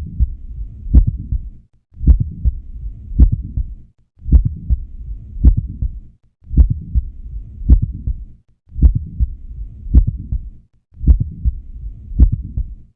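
Heart sounds heard through a stethoscope at the cardiac apex: sharp beats about once a second with an extra mid-systolic click in each beat, typical of mitral valve prolapse, over a low rumble. The recording repeats as a short loop of about two beats with brief gaps between.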